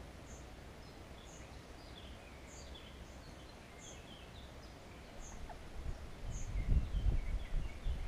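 Small birds chirping beside a stream, with a thin high call repeating about once a second. From about two-thirds of the way in, a low rumble on the microphone takes over and is the loudest sound.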